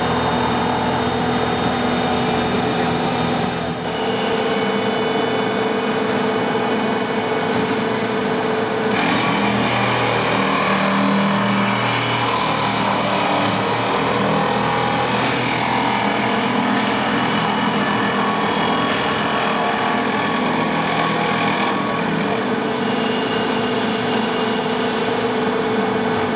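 Leaf spring eye grinding machine running: electric motors driving abrasive grinding wheels against the steel eye of a leaf spring, a steady grinding noise over a constant motor hum.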